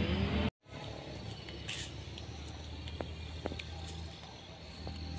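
Quiet outdoor village ambience with a steady low hum, a brief high chirp a little under two seconds in, and two faint clicks around three seconds in. A louder passage cuts off abruptly about half a second in.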